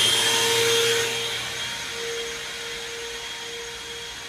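Small vacuum cleaner taped to a clothes-dryer vent hose, running with a steady motor whine and pulling air through the hose to clear out the lint. It gets quieter after about a second.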